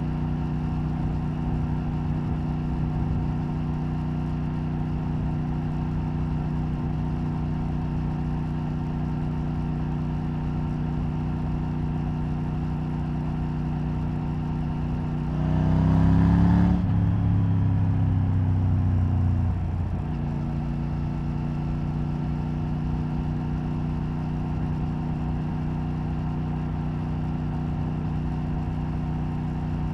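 Triumph Tiger 900 Rally Pro's 888 cc three-cylinder engine through its stock exhaust, heard onboard at a steady cruise. About halfway through, the engine note jumps up and gets louder for about four seconds under more throttle, then drops back to the steady cruise. A buzzing from the loose license plate runs under it.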